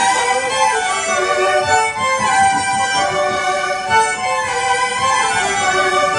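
Several violins playing a melody together with held notes, over a band accompaniment.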